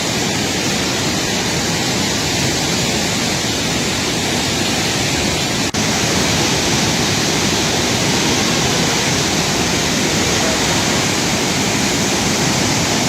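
A swollen, flooding river rushing with a loud, steady roar of turbulent water, broken once by a very brief dropout about halfway through.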